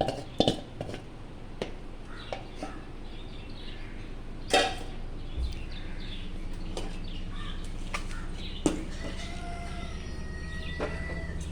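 Spoon knocking and scraping in a cooking pot as chicken is spread over a biryani layer, with a few sharp knocks, the loudest about four and a half seconds in. Chickens clucking in the background.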